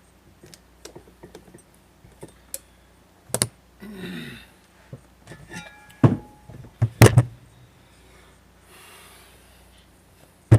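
Metal parts and tools being handled during ATV axle work: light clicks and taps with a few sharp clanks, the loudest about seven seconds in.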